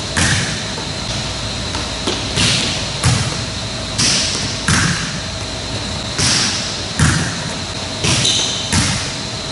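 A volleyball thudding off a player's forearms in serve-receive passes, about every two seconds, each thud shortly after a brief hiss, over a steady faint hum.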